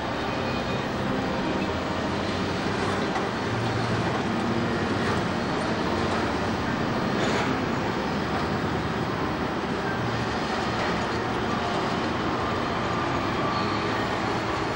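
Heavy diesel engine of a log-handling wheel loader with a grapple crane, running steadily as the machine drives.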